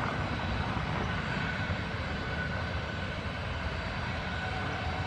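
Boeing 737-800's CFM56-7B turbofan engines running at taxi power: a steady rumble with a faint, even high whine over it.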